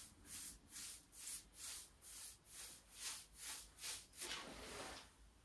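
Paintbrush brushing varnish onto a Douglas fir beam: faint, rhythmic swishes of the bristles over the wood, about three strokes a second, stopping shortly before the end.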